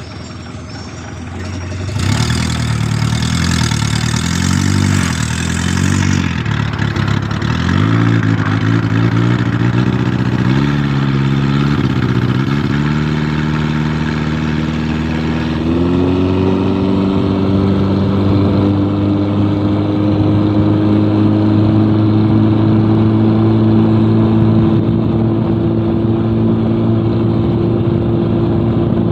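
Car engine driving a katinting longtail boat, running at low speed, then revved up about two seconds in and swung up and down several times. From about halfway through it is held at high, steady revs with the pitch creeping slowly upward.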